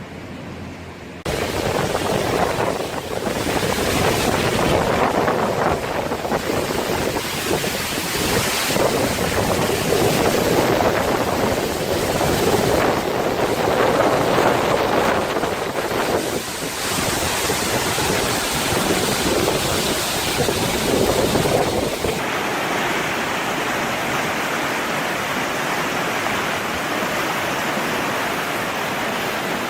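Rushing water, surging unevenly, then changing abruptly about 22 seconds in to a steadier, even rush.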